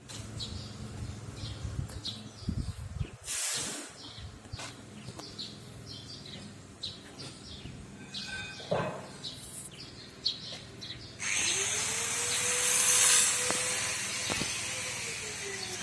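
Komatsu D85 bulldozer engine running low, with short high chirps over it. About eleven seconds in, a loud rushing hiss of blowing air starts suddenly and carries on.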